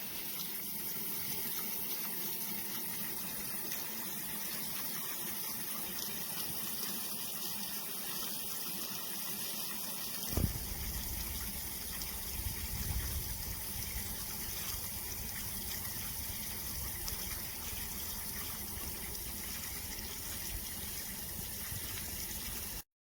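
Water from an Intex pool waterfall fountain pouring and splashing steadily into a pool. There is a single sharp knock about ten seconds in, after which a low rumble joins the water.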